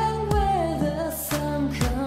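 Background music: a slow, steady beat of about one drum stroke a second under a held bass, with a sustained melody line that slides between notes.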